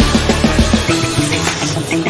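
Background music with a steady driving beat and guitar.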